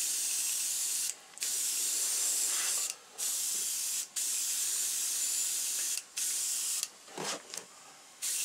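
Airbrush spraying white paint in a steady hiss, stopping briefly every second or two as the trigger is let off, with a longer stop near the end.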